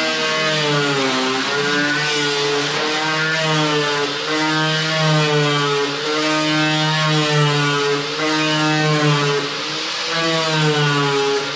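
Handheld pneumatic cut-off tool cutting into the sheet steel of a 1973 Plymouth Duster's lower quarter panel, a steady whine that rises and falls in pitch as the wheel bites and eases off. It dips briefly about ten seconds in.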